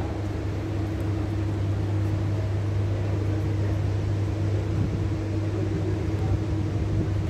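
Steady low droning hum with a constant hiss behind it, unchanging throughout.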